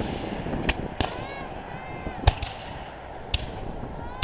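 Scattered black-powder musket shots from reenactors, four separate cracks a second or so apart, each echoing briefly.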